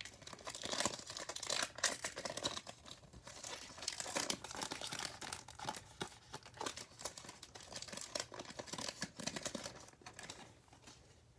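A 2019 Donruss Optic football card pack's wrapper crinkling as it is torn open and handled, in dense, irregular crackles that die down near the end.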